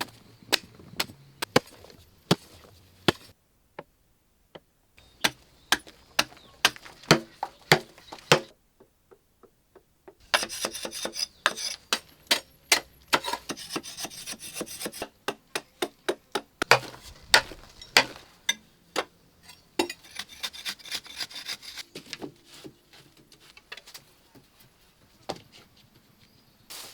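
Wood being worked by hand: many sharp knocks and clicks with rubbing and scraping between them. The sound comes in several segments, broken by sudden gaps a few seconds in and again near the third of the way through.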